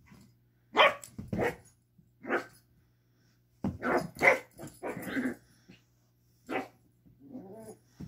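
Puppy play-barking: a string of about eight short gruff barks ('gerruffs'), then a softer growl near the end.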